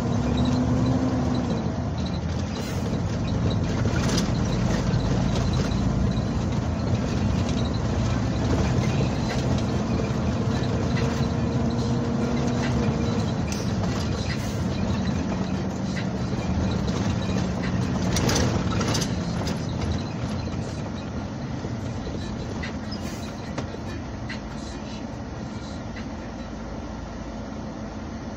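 Truck engine running with road noise, heard from inside the cab, with a few short knocks and rattles. The engine quietens over the last several seconds as the truck slows.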